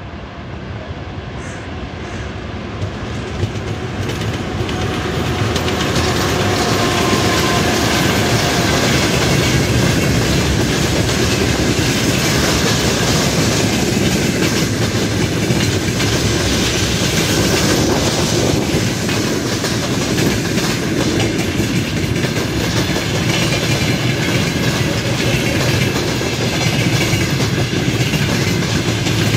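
A freight train hauled by a 2M62UM two-section diesel locomotive draws near, growing louder over the first few seconds. Its open gondola wagons and then container flatcars roll past with a steady rattling clickety-clack of wheels over the rail joints.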